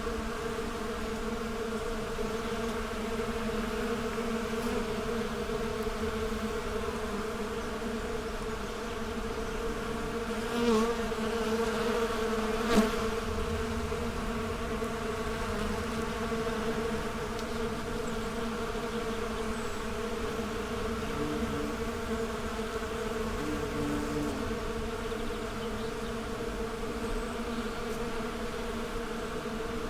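Many bees buzzing together in a steady collective hum. The hum swells briefly about eleven seconds in, and there is a short sharp click about two seconds later.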